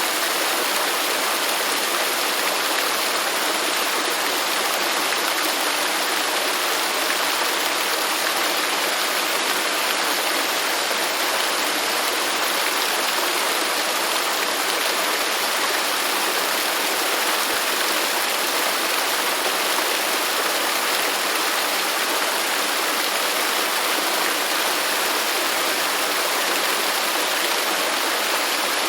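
Waterfall: water falling and splashing in a steady hiss.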